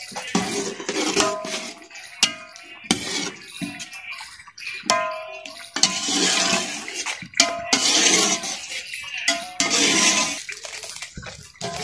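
Metal slotted spoon stirring and scraping through lumps of desi ghee melting in an aluminium pot, with repeated clinks of metal on the pot.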